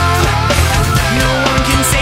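Loud rock music with distorted guitar and a steady bass line.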